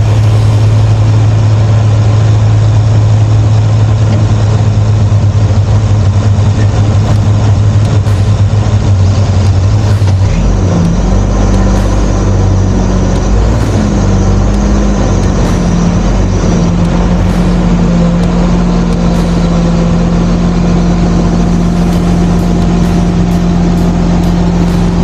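Crane's diesel engine running steadily, then speeding up about ten seconds in and holding at the higher speed.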